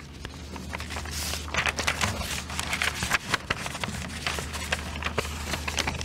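Sheets of paper rustling and crinkling as they are handled close to a podium microphone: an irregular run of small crackles and clicks. A low steady hum sits underneath.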